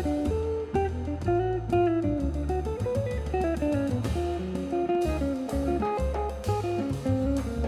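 Background music: an upbeat plucked guitar melody over bass and drums with a steady beat.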